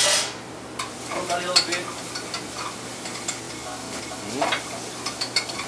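A spoon stirring and scraping in an aluminium saucepan while onion, garlic and ají pepper pastes sizzle in hot oil, the base of a soup being toasted. A louder burst of noise comes right at the start, then lighter scrapes and clicks.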